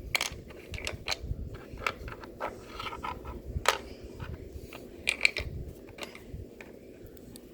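Small plastic toys and accessories being handled: irregular light clicks and knocks of plastic pieces, with one sharper click a little past halfway.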